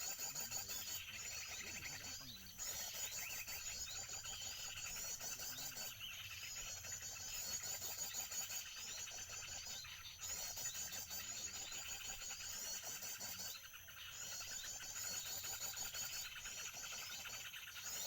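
Small birds chirping in fast, high trills, in repeated phrases of a few seconds each with short pauses between them.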